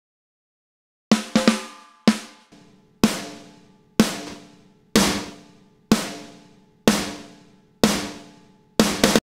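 Soloed snare drum playing alone, one crisp hit about every second with a short ringing decay, a couple of quick extra hits near the start and a fast run of three near the end. It is the original recorded snare blended with a replacement snare sample chosen to sound more aggressive.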